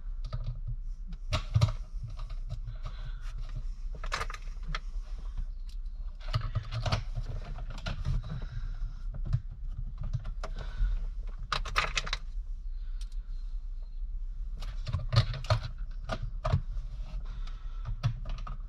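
Irregular metal clicks, clinks and rattles of Allen keys and small bolts being handled while a shifter is fitted and bolted down, over a low steady hum.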